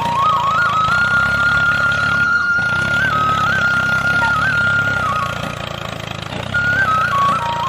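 Homemade toy tractor driving, its small motor whining at a wavering, stepping pitch over a low engine-like rumble. The whine drops out for a moment about two-thirds of the way in, then returns near the end.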